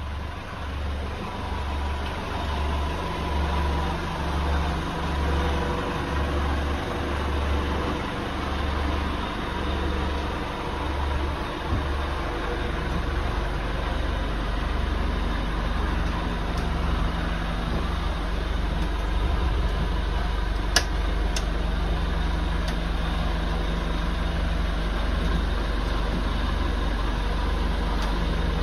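A low machine drone, like a motor running aboard: it pulses slightly more than once a second for the first twelve seconds, then holds steady. A few sharp clicks come about twenty seconds in.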